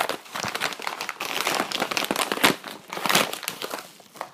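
Yellow padded paper envelope being handled and pulled open: irregular crinkling and rustling of the paper, with a few louder crackles, quieter near the end.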